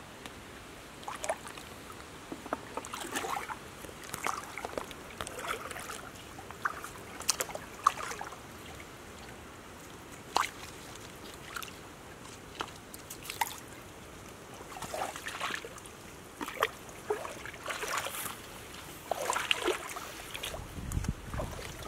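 Splashing and sloshing in a shallow stream as a stick prods the water, with scattered sharp knocks, over a steady trickle of running water.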